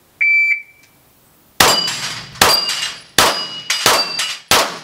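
Shot timer beeps once to start the run, then a Glock pistol fires five shots about 0.7 s apart, each followed by the ring of a steel plate being struck on a six-plate rack.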